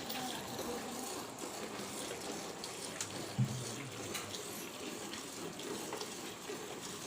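Steady rushing of running water, with one brief low thump about three and a half seconds in.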